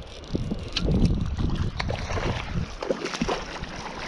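Wind buffeting the camera microphone over rushing river water, with a few short sharp splashes as a hooked trout is drawn in close.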